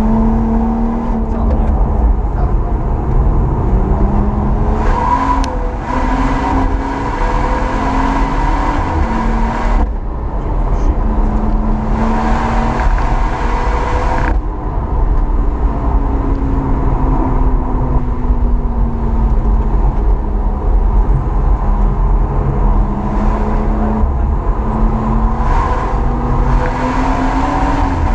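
BMW M140i's tuned turbocharged straight-six with an aftermarket valved exhaust, heard from inside the cabin under hard driving on track. The engine note climbs in pitch and drops back again and again as it runs up through the revs and changes gear. There are two longer stretches of louder rushing noise, about five seconds in and again around twelve seconds.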